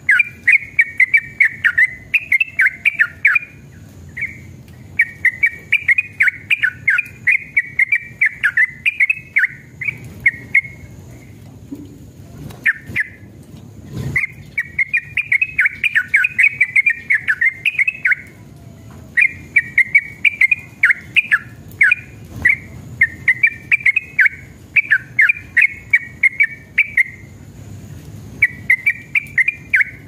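Yellow-vented bulbul (trucukan) singing long runs of fast, chattering notes, in phrases of a few seconds broken by short pauses.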